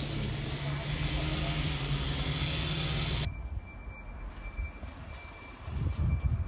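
A steady mechanical drone with a hiss, cut off abruptly about three seconds in. The rest is quieter, with wind buffeting the microphone near the end.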